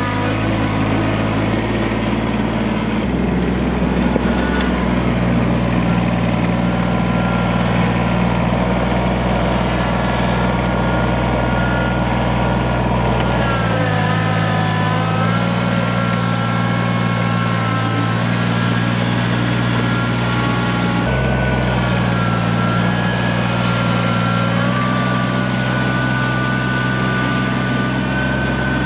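Kubota BX2370 compact tractor's three-cylinder diesel engine running steadily while working its front loader on gravel. The engine note shifts up and down a few times.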